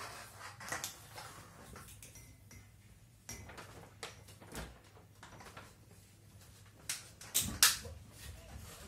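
Plastic clicks and knocks from hands working at the casing and filter of a Sharp indoor split air-conditioner unit, with the sharpest knocks near the end.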